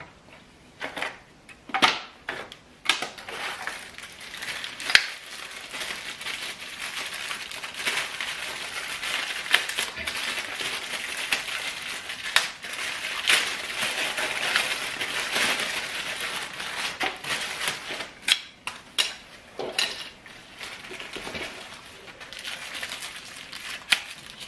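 Packaging being handled and unwrapped, with a steady crinkling, crackling rustle through the middle and scattered sharp clicks and knocks before and after it.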